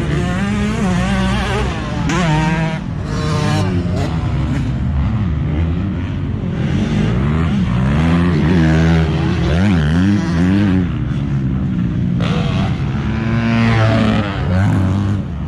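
Motocross dirt bikes running on the track, several engines at once, revving up and down over and over as the riders go through the jumps and corners.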